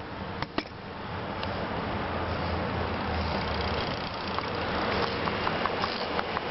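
A car, an SUV, approaching along the street: engine rumble and tyre noise grow louder over the first couple of seconds, then hold steady as it nears.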